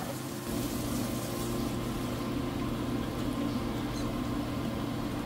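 Vegetable pakoras in gram-flour batter deep-frying in hot oil in a pan: a steady sizzle and bubbling, over a steady low hum.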